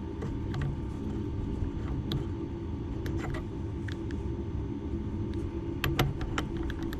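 Small metallic clicks and taps as a centre drill and its collet are handled and adjusted in a drill-sharpener's setting guide, the loudest cluster about six seconds in, over a steady low hum.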